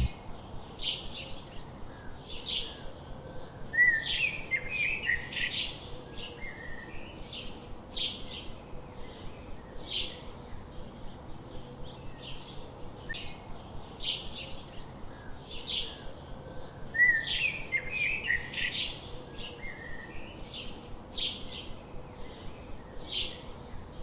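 Small birds chirping: short, high chirps about once a second, with a brief busier run of calls about four seconds in and again near seventeen seconds.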